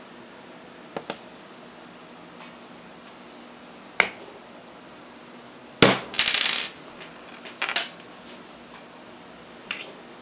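Sharp knocks and light metallic taps on a wooden tabletop around a steel screw held upright. The loudest knock comes just before six seconds in and is followed by a short rattle of about half a second, with more knocks near eight seconds.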